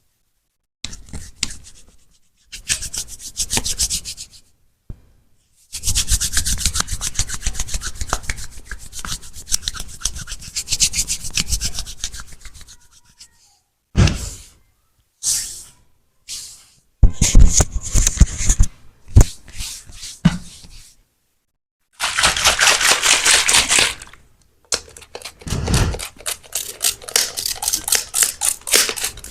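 Massage sounds: hands rubbing quickly against skin in repeated bursts of rapid strokes, separated by short pauses. A few louder, sharper strokes come about halfway through.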